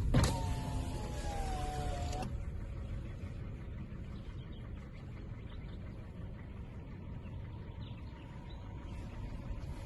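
Outdoor ambience of steady low rumbling, opened by a click and a slightly falling whine that stops abruptly after about two seconds, with faint bird chirps later.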